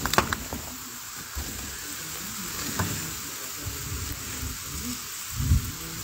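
Volcanic ash and lapilli falling on corrugated metal sheeting, a steady pattering hiss like frying. Low thumps come and go, the loudest about five and a half seconds in, with a few sharp clicks near the start.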